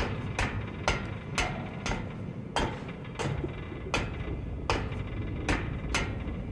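A series of sharp, hammer-like knocks, about two a second and spacing out slightly toward the end, over a low steady rumble.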